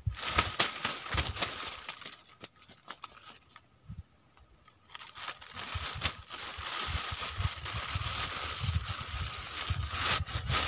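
Crinkling, rustling handling noise close to the microphone, with a quieter lull between two busier spells.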